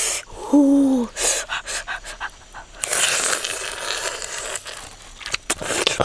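A person eating roasted eel by hand: chewing and mouth noises with loud breathing, and a short hum falling in pitch about half a second in.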